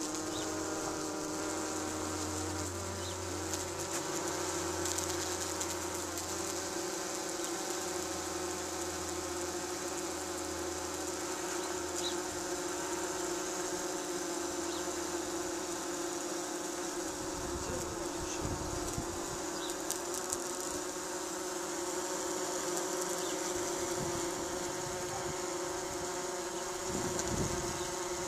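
Tree bumblebees fanning their wings at the entrance of a nest box, a steady, even buzzing drone: ventilating the nest to cool it in the heat. A few brief low rumbles come in the second half.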